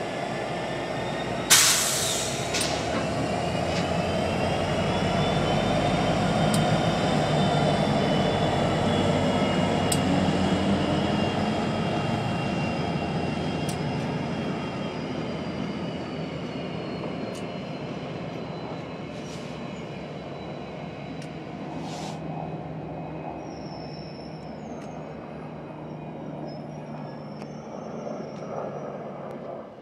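Union Pacific diesel locomotive running slowly past, its engine drone swelling and then fading as it moves away. A faint, wavering wheel squeal rides above it, and there is a sharp clank about a second and a half in.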